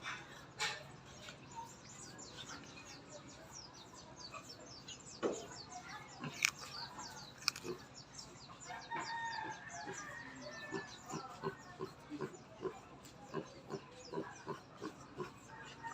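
Elongated tortoise biting and chewing melon: wet clicks and crunches, coming about one to two a second in the second half, with brief pitched calls in the background around the middle.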